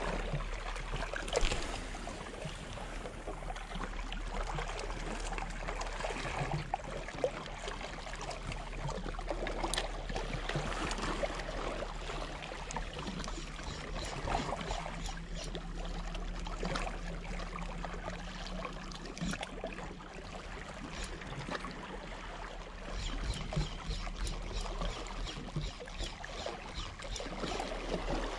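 Small sea waves lapping and washing against shoreline rocks, with a few light clicks.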